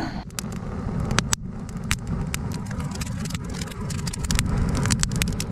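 Air forced into a small campfire with a fire stoker, a bellows-type blower: a steady low rushing rumble of fanned flames, with many sharp crackles and snaps from the burning kindling.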